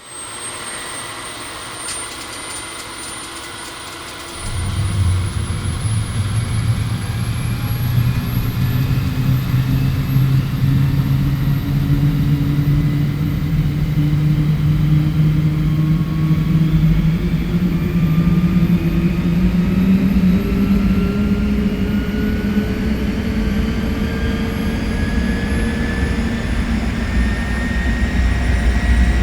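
Jet airliner takeoff heard from inside the cabin: the engines whine steadily, then about four seconds in the thrust comes up sharply with a deep rumble. The engine tones then climb slowly and steadily in pitch as the aircraft accelerates down the runway.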